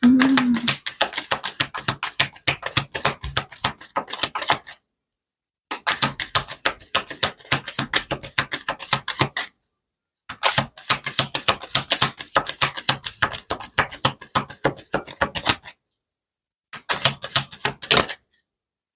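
A deck of tarot cards being shuffled: fast, crisp flicking of cards in four runs of about one to five seconds each, with short pauses between.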